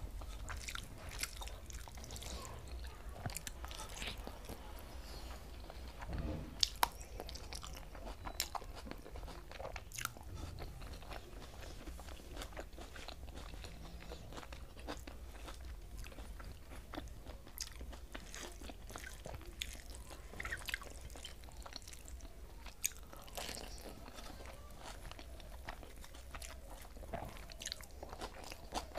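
Close-miked eating by hand: a person chewing and biting mouthfuls of rice, omelette and fried vegetables, with scattered sharp clicks and crunches, the loudest a few about six to seven seconds in. A steady low hum runs underneath.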